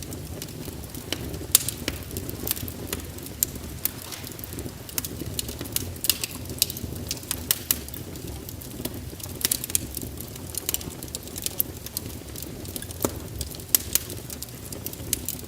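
Wood fire crackling in a fireplace: irregular sharp pops and snaps over a low, steady rumble of flames.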